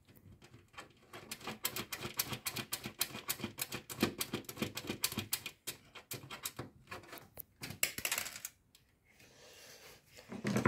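A long run of fast, irregular clicks from the radiator's mounting screws being turned in loosely through the top of a PC case, ending with a loud knock.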